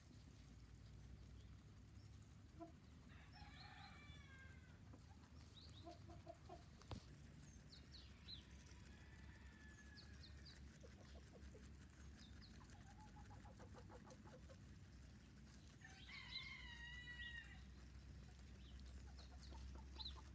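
Faint, quiet farmyard background in which a chicken clucks twice, once about three seconds in and again around sixteen seconds in, with a few short chirps and soft clicks in between.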